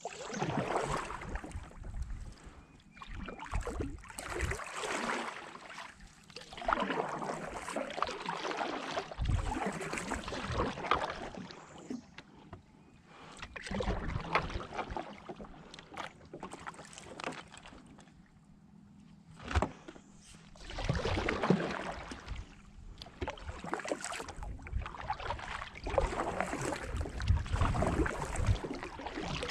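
Kayak paddle strokes dipping into and splashing through water, in swells every couple of seconds, with a few low thumps in between.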